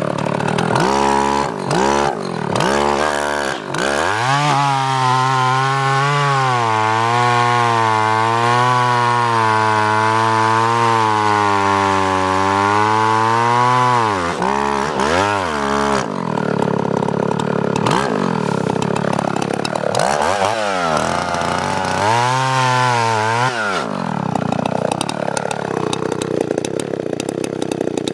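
Gasoline chainsaw revved a few times, then held at full throttle for about ten seconds with its pitch wavering slightly as it cuts into a sweet gum log. It then drops back, is revved once more for a few seconds, and falls away near the end.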